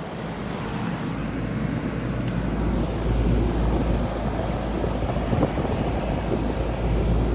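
Outdoor condensing unit of a Rheem Classic 2.5-ton central air conditioner starting up and running, its Genteq condenser fan motor and Copeland scroll compressor building to a steady low rumble over the first few seconds.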